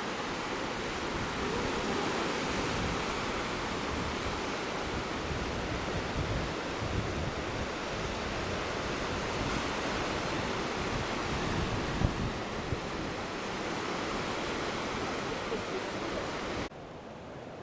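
Ocean surf washing and breaking over rocks along a rocky shoreline, a steady rushing wash, with wind buffeting the microphone. The sound drops away suddenly near the end.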